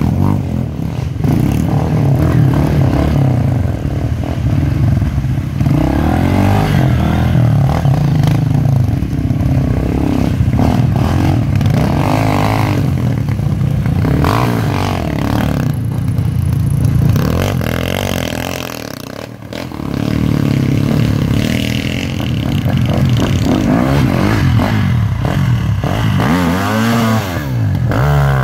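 Off-road motorcycle engines revving hard up close, the revs rising and falling as dirt bikes climb a muddy bank. About two-thirds of the way through the engine sound drops off briefly, then builds again with a rising rev near the end.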